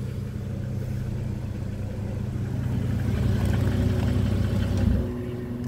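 BMW N52 inline-six idling cold, with a top-end tick that sounds like a rod knock but comes from the top of the engine: the owner takes it for the well-known hydraulic lifter tick, which goes away once the engine is warmed up.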